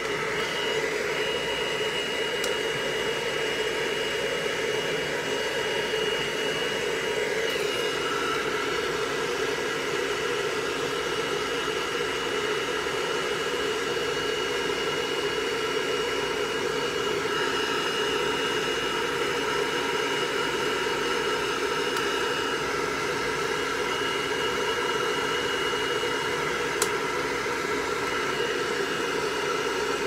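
Hand-held electric hair dryer blowing steadily: an even rush of air with a thin high whine over it, the tones shifting slightly a few times. One short click near the end.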